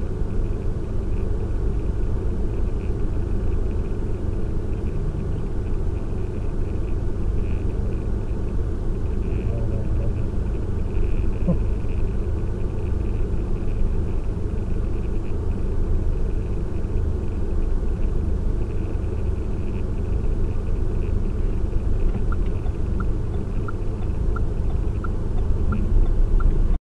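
Steady low engine and road rumble of a car driving, as picked up by a dash camera. Near the end a run of light ticks repeats about one and a half times a second.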